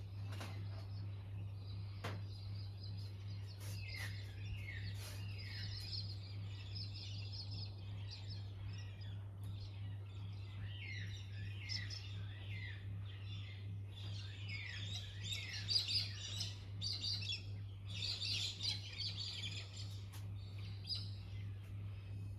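Songbirds chirping: many quick, descending chirps, busiest about two-thirds of the way through, over a steady low hum.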